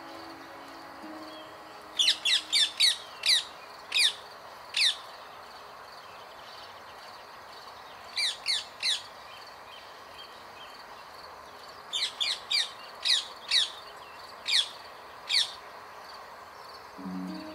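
Rose-ringed parakeet calling: shrill screeches, each sliding downward in pitch, in three bouts of several calls, about half a second apart.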